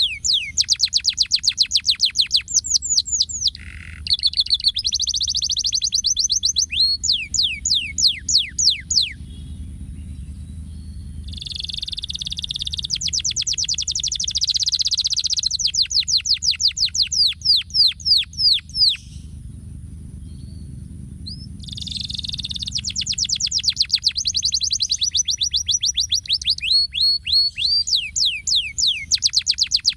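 Domestic canary singing a long song: rolls of rapid, repeated falling notes and dense trills, with two short lulls, about ten seconds in and again about twenty seconds in.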